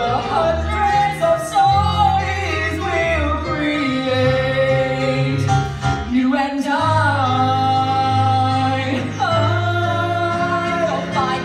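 A woman and a man singing a musical-theatre song together, with long held notes over instrumental accompaniment that carries sustained bass notes.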